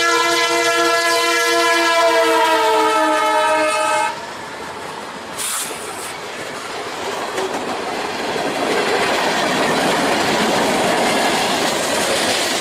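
Locomotive air horn sounding a long chord, its pitch sliding slightly down as it goes by, for about four seconds. Then comes the rushing clatter of the train's wheels on the rails, growing louder until it cuts off.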